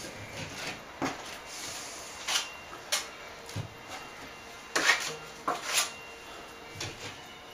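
Steel plastering knife scraping and clicking against the plaster and board as plaster is pushed up into a hole in a plasterboard ceiling: a series of short, irregular scrapes and taps.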